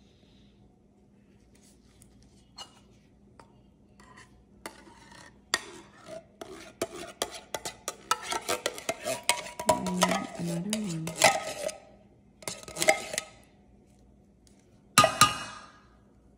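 A spoon scraping and clinking against a container in a busy run of scrapes and taps, ending with one sharp clatter.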